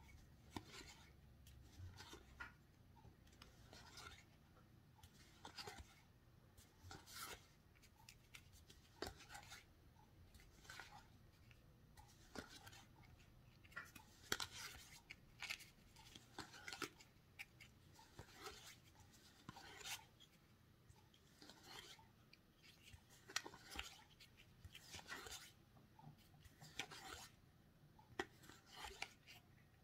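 Faint, soft swishes of game cards sliding against each other as they are moved one by one from the front of a held stack to the back, about one card every second or two.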